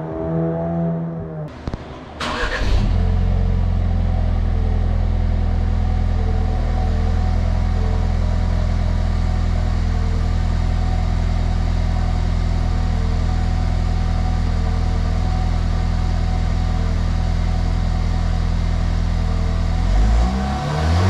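Ford Bronco's 2.3 L EcoBoost turbocharged four-cylinder through its exhaust. It is first heard pulling away with its pitch falling, then, after a cut, idling steadily with a low, even exhaust note, and it starts to rev near the end.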